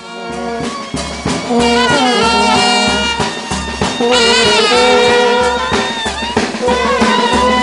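Marching brass band playing a tune in the street: euphonium and tuba carry the melody over a steady bass drum beat.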